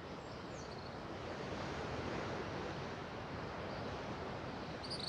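Steady rushing background noise that swells slightly in the middle, with a few faint high insect chirps.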